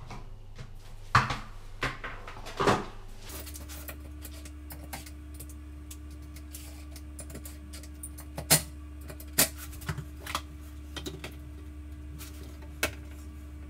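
Sharp plastic clicks and knocks from a toilet seat and its plastic hinge lugs being handled and adjusted as the seat is moved back on the bowl. A steady low hum sets in about three seconds in.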